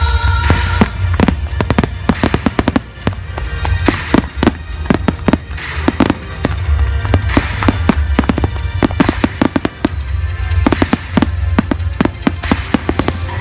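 Fireworks going off in a rapid, dense barrage of bangs and crackles, many a second, with music playing underneath.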